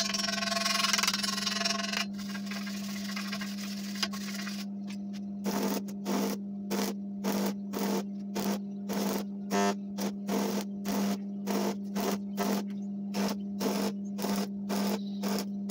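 Stick (arc) welding on a steel gas cylinder: the arc crackles and hisses over a steady electrical hum. From about five seconds in, the crackle comes in short regular bursts, about two a second.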